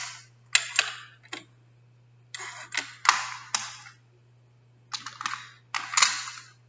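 An irregular string of short, sharp clicks and rustles close to the microphone, coming in clusters with short pauses between them, over a steady low electrical hum.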